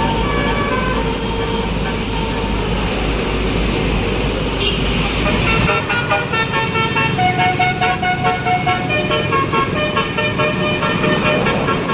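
Bus 'telolet' basuri multi-tone air horn playing a tune of short notes at changing pitches, over road and traffic noise. A low rumble cuts off about halfway through.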